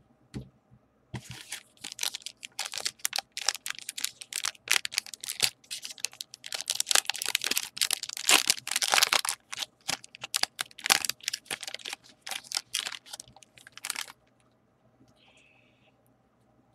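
Foil wrapper of a baseball card pack being torn open and crinkled by hand: a dense run of sharp crackling that starts about a second in and stops suddenly a couple of seconds before the end.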